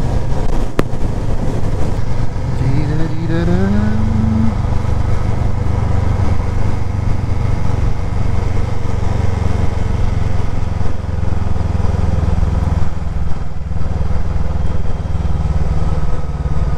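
A Voge 500R's parallel-twin engine running under way. It rises in pitch as it accelerates, from about two seconds in until about four and a half, then settles into a steady drone.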